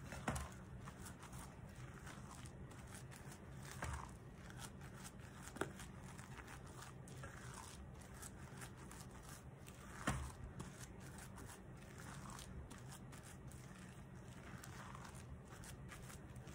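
Silicone spatula stirring and folding thick coconut cookie dough in a glass bowl: faint soft scraping, with a few sharper knocks against the glass, the loudest about ten seconds in.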